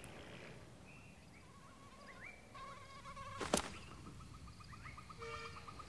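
Faint jungle ambience of small animal calls: scattered short chirps and rising calls, joined about halfway through by a fast, even trill. A single sharp click comes about three and a half seconds in.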